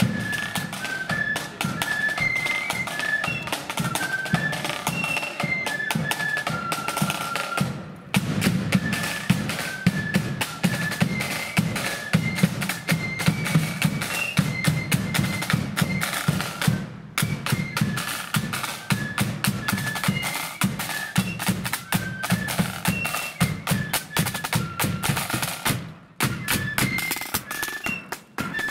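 Marching flute band playing a tune: massed flutes carry a quick melody over rattling side drums and a bass drum beating steadily.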